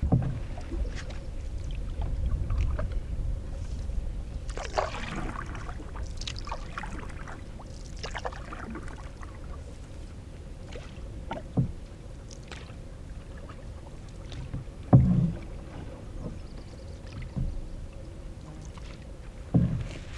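Canoe being paddled: splashing water from paddle strokes in the first half, then several short dull knocks against the boat, the loudest about 15 seconds in.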